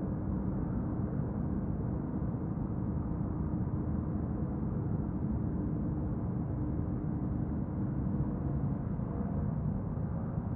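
Honda NC750X's stock 745 cc parallel-twin engine running at a steady pitch under a constant rumble, with the engine note shifting slightly lower about eight seconds in.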